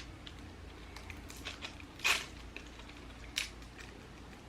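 A few light clicks and ticks of small plastic parts being handled as a micro SD card is taken out for a GoPro camera, with one sharper click about two seconds in and another near three and a half seconds.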